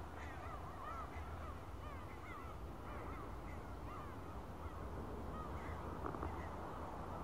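A flock of birds over the river calling: many short rising-and-falling calls, overlapping and repeated, over a low steady rumble.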